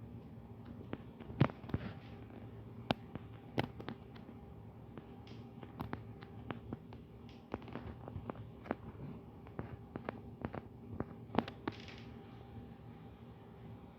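Irregular sharp clicks of a computer mouse and keyboard in use, a few louder than the rest, over the steady hum of the computer and room.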